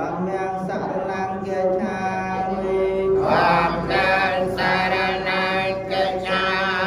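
Buddhist monks chanting together in Pali, several male voices held in unison in a continuous, steady chant.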